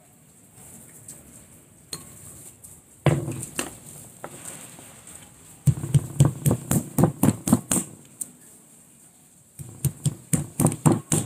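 A hand-held stone knocking on roasted cashew nuts set on the rim of a jar, cracking their charred shells. One knock comes about three seconds in, then two runs of quick knocks at about six a second, with faint clicks of nuts being handled in between.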